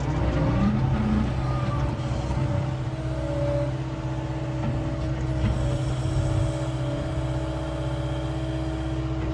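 John Deere 333E skid steer's diesel engine running steadily under hydraulic load while it works a skid-steer log splitter, the auxiliary hydraulics in standard rather than high flow.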